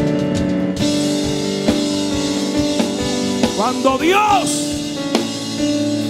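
Live church band music: sustained keyboard chords with drum-kit hits, and a brief shouted voice rising and falling about four seconds in.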